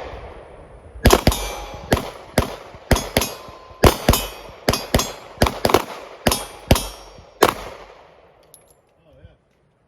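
Glock 48 9mm pistol fired in a steady string of about fifteen shots, roughly two a second. Each is a sharp crack with a short echo. The string stops about seven and a half seconds in.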